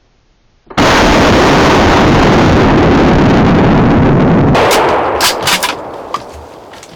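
A firearm shot fired at a deer from inside a ground blind, less than a second in, so loud that it overloads the recording into nearly four seconds of harsh, distorted noise. A few sharp clicks follow as it dies away.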